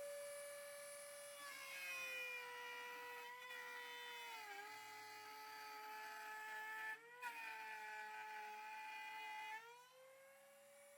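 A power tool's electric motor whining at speed, its pitch dropping and the sound growing fuller as it bites into wood about a second and a half in. It stays loaded, with a brief break about seven seconds in, then rises back to free speed near the end.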